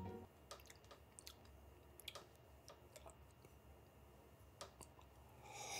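Near silence: faint scattered clicks, and a short breathy hiss just before the end.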